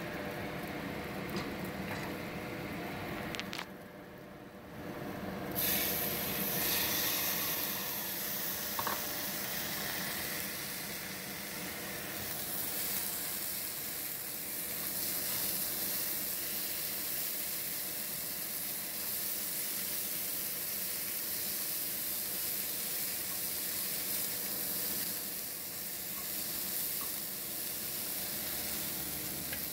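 White rice frying in melted butter in a hot stainless-steel pot, sizzling steadily as it is stirred with a slotted spoon. About five seconds in, mixed carrots, corn and peas go into the pot and the sizzle turns suddenly louder and stays that way.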